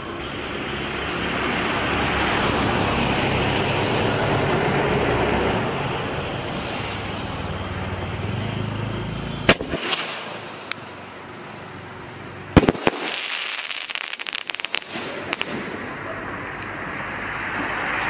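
A 4-inch three-ball aerial firework going off. A steady hiss runs for the first nine seconds or so, then comes a single sharp bang, and a few seconds later a quick cluster of cracks and crackling as the shells burst in the sky.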